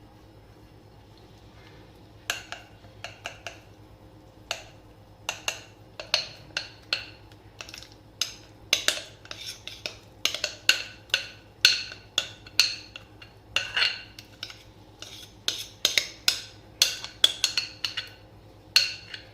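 A metal spoon clinking and knocking again and again against steel cookware as thick khaman batter is spooned into an oiled mould. The irregular clinks start about two seconds in and come one to three a second, each with a short bright ring.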